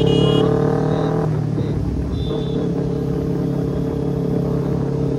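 Kawasaki Ninja 300's parallel-twin engine running through a loud aftermarket exhaust. Its pitch climbs slightly for about a second, drops back, then holds steady.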